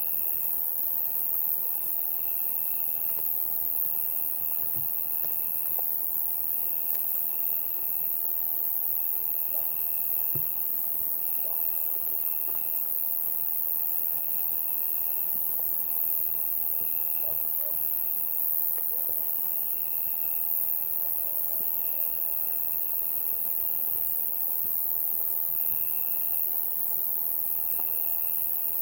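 Summer-night insect chorus: a dense, steady high-pitched buzz of many insects. Over it, a cricket trills in stretches of a second or two with short breaks.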